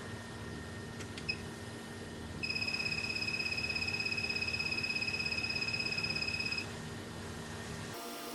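An electronic beeper on bench equipment sounding one high, fast-fluttering beep for about four seconds, preceded by a faint click, over a steady workbench hum.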